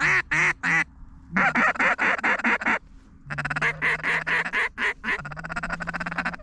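Mallard duck call sounding a series of loud, nasal quacks, followed by a faster run of short pulsing notes over a steady low buzz, calling to ducks working toward the decoys.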